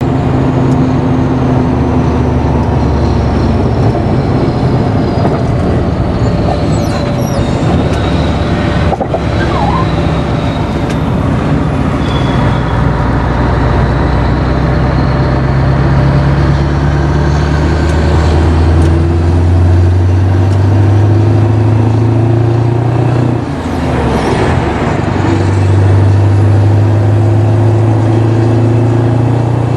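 Scania 143M 420 V8 truck engine heard from inside the cab, accelerating hard through the gears. The engine note climbs steadily, drops briefly at a gear change about two-thirds of the way through, then climbs again, with a further dip just before the end.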